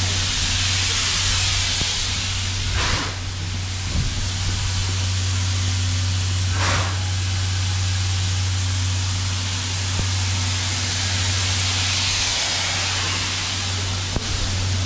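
C11 steam locomotive venting a steady, loud hiss of steam over a constant low hum, with two brief stronger gusts of steam about three and seven seconds in.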